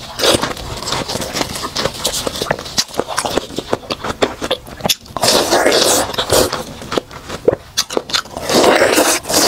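Close-miked bites into ripe watermelon and chewing, wet crunching and crackling of the juicy flesh. Small crackles and clicks run throughout, with a long crunchy bite about five seconds in and another near the end.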